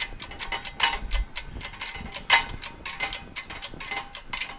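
Hand-pumped bottle jack of a 20-ton hydraulic shop press being worked, giving rapid, uneven mechanical clicking, about five clicks a second, with one louder clack a little past halfway, as it presses a bearing retainer ring onto an axle shaft.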